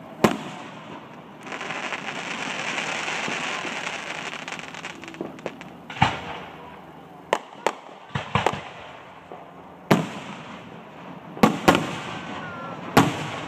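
Aerial fireworks shells bursting overhead with sharp bangs, about ten of them, several in quick pairs. After the first bang there are a few seconds of steady hissing.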